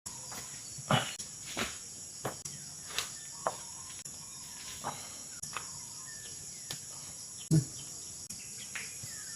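Insects chirring steadily and high-pitched, with a scatter of short clicks and knocks; the loudest knocks come about a second in and again about three-quarters of the way through.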